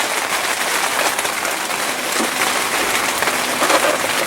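Steady splashing of water pouring from a small waterfall feature into a koi tank.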